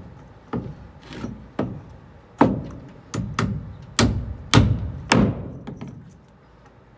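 Framing hammer driving a nail into a block of stacked 2x4 lumber: about ten sharp, unevenly spaced strikes, the heaviest in the middle of the run, stopping about six seconds in.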